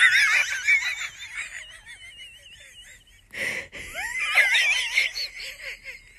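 A dog whining in high-pitched, warbling whines that waver up and down in pitch, in two long stretches with a short breathy huff between them about three and a half seconds in.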